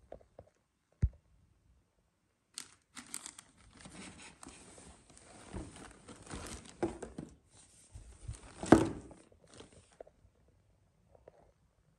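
Thin plastic packaging bag crinkling and rustling as a garment is handled and pulled out of it, with many small crackles and a louder crackle near the end. A single sharp thump about a second in.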